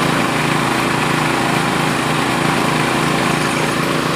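Small engine running steadily at a constant speed, driving bore-well drilling machinery.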